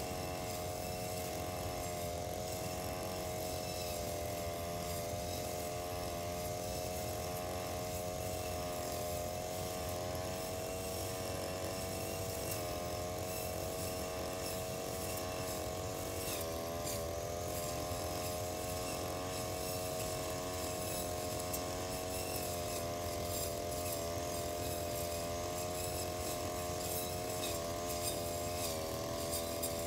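Brush cutter running steadily as it cuts grass, a continuous buzzing drone whose pitch dips briefly twice, about halfway through and again near the end.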